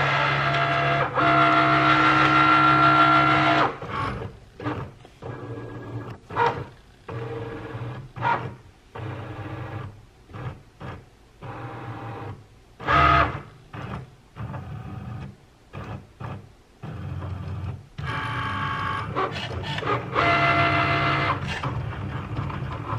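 Cricut Maker cutting machine running a cut on printable sticker paper: its motors whine as the blade carriage and mat move. A loud steady whine for the first few seconds, then a long run of short stop-start moves as it cuts around each sticker, and a louder stretch again about eighteen seconds in, when it moves from one part of the sheet to another.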